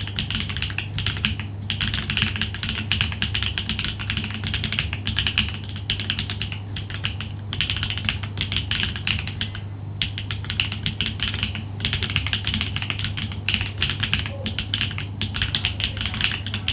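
Typing on a Neo80 mechanical keyboard with HMX Ice Lotus tactile switches, a POM plate and no internal foam: a fast, continuous run of key clacks broken by a few short pauses, over a steady low hum.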